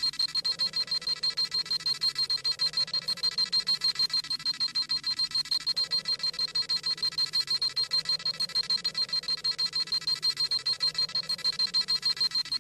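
Dragon Ball Z scouter scanning sound effect: a high electronic tone beeping rapidly and evenly, about six beeps a second, with no change in pitch or level.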